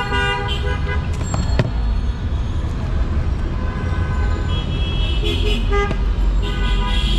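Road traffic running steadily, with vehicle horns honking several times: near the start, again from about four and a half seconds in, and once more near the end.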